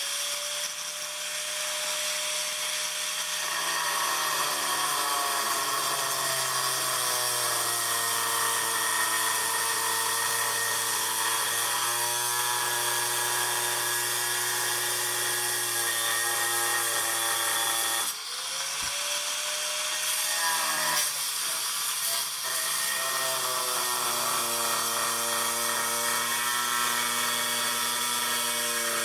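4.5-inch angle grinder with a dry-cutting turbo diamond blade cutting hard porcelain tile. The motor whine runs high for a few seconds, then drops in pitch as the blade bites into the tile, giving a steady grinding cut. About 18 seconds in it lets off briefly, spins back up and drops again as it cuts on.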